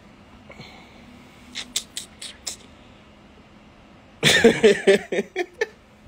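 A few short, high hissing clicks, then about four seconds in a man's voice makes a quick run of short, loud wordless sounds.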